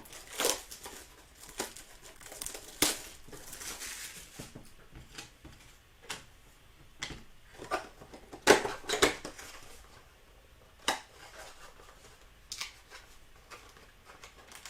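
Trading-card packaging being opened by hand: plastic wrapper crinkling and tearing, with scattered sharp crackles and clicks, the loudest a cluster about eight and a half to nine seconds in.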